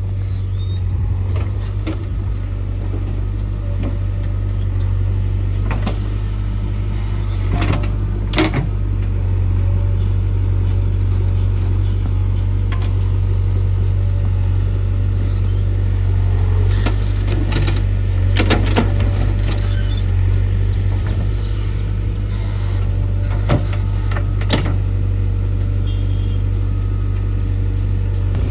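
JCB 3DX backhoe loader's diesel engine running steadily under load while the backhoe works, with scattered sharp metallic knocks and clanks from the digging and loading.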